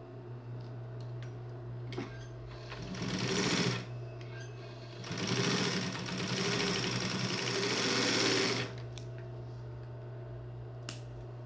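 Industrial twin-needle sewing machine stitching bias binding in two runs: a short burst about three seconds in, then a longer run of about three and a half seconds from about five seconds in. A steady low hum continues underneath.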